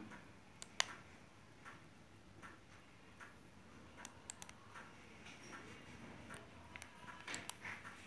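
Scattered clicks of a laptop's keyboard keys and touchpad buttons. One sharp click comes about a second in, a quick run of clicks falls in the middle, and more clicks come near the end.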